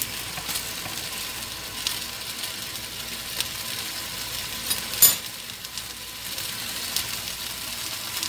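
Food sizzling in a pan on the stove: a steady high hiss with scattered small pops, and one short sharp knock about five seconds in.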